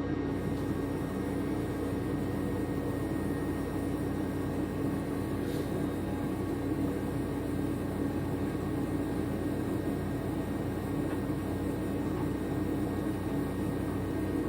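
A machine running steadily, a constant drone with a strong steady hum, and a faint tick about five seconds in.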